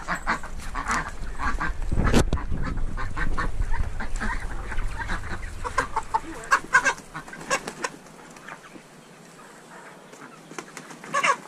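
Ducks and chickens calling in a pen: many short, repeated quacks and clucks that thin out after about eight seconds, with a loud thump about two seconds in.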